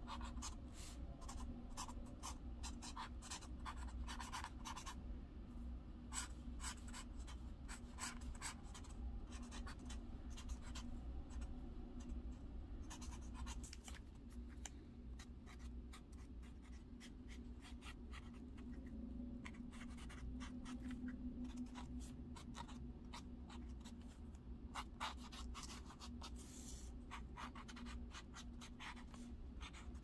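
Felt-tip strokes scratching across paper in quick runs, with a sparser spell around the middle, over a steady low hum.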